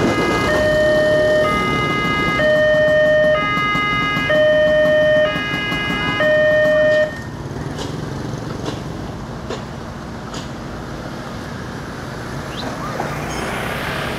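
Railway level-crossing electronic warning alarm sounding a repeating two-tone chime, switching tone about once a second. It cuts off suddenly about seven seconds in as the barrier is raised and the crossing reopens. Motorcycle and road noise follows.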